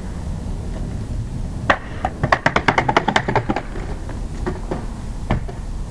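Longboard clattering down concrete steps: a sharp knock about two seconds in, then a rapid run of hits about eight a second for a second and a half, then a few scattered knocks.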